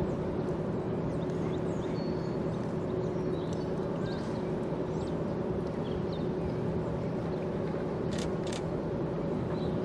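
Steady low drone with a held hum from the machinery of the steam freighter Wilfred Sykes and the tug working beside it. Small bird chirps come over it here and there, and two sharp clicks sound about eight seconds in.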